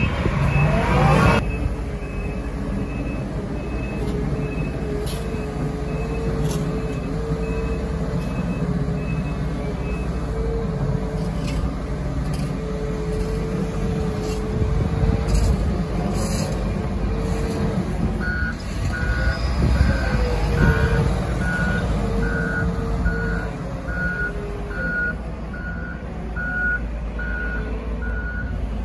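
Diesel engines of heavy snow-clearing machines running steadily, with reversing alarms beeping. A higher-pitched alarm beeps evenly through about the first ten seconds. A lower-pitched alarm takes over for about the last ten.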